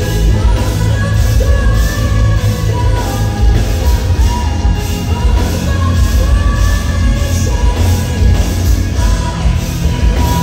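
Symphonic metal band playing live: a woman's lead vocal sung in long held notes over distorted electric guitar and drums, with evenly repeating cymbal hits and a heavy bass end.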